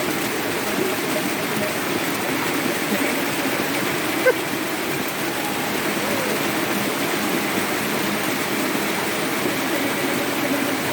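Steady heavy rain falling, with running and pouring water. A brief sharp click about four seconds in.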